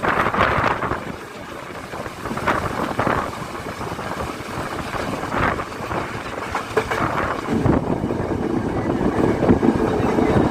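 Yal Devi passenger train running along the line, heard on board: a continuous rumble with gusts of wind across the microphone. A steadier hum comes in about eight seconds in.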